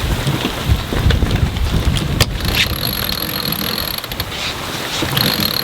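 Wind rushing over the microphone aboard a sailboat under sail, a steady low rumble, with a single sharp click about two seconds in. A thin high-pitched whine comes in twice in the second half.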